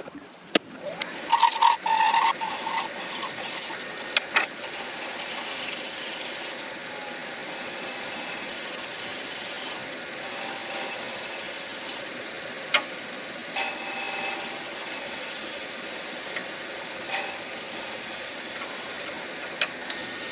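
Midi lathe spinning an acrylic pen blank while a turning tool cuts it: a steady scraping hiss with a few sharp clicks.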